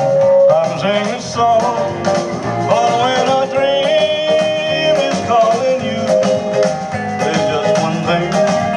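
Rock-and-roll backing music playing.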